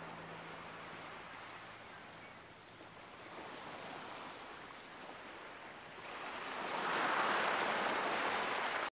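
Sea surf washing in, a steady rushing hiss that swells into a louder wave about two-thirds of the way through, then cuts off suddenly.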